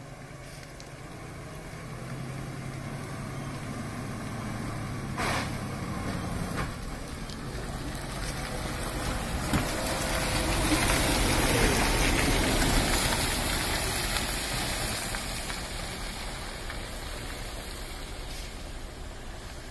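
Loaded diesel truck running as it approaches, passes close by and moves away on a muddy dirt road, loudest about halfway through and then fading. A short hiss comes a little over five seconds in.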